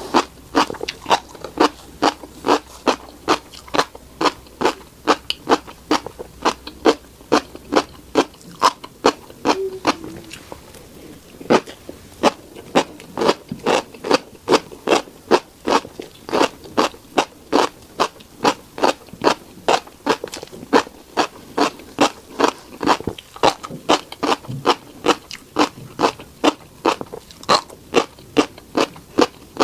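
Close-miked chewing of a mouthful of tiny black seeds: crisp crunches about two a second, with a short pause about ten seconds in.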